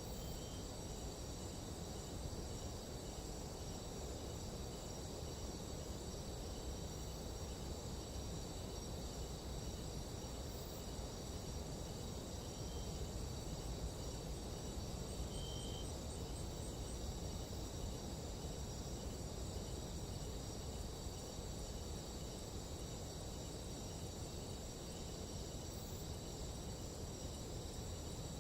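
Nighttime tropical jungle insect chorus: several steady high-pitched trills layered together, with a short chirp repeating about twice a second beneath them, over a low steady rumble.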